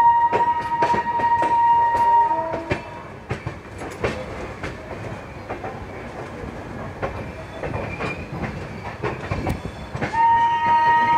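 Train horn sounding a long, steady blast for the first couple of seconds and again near the end, while the moving passenger train's wheels clack over the rail joints in between.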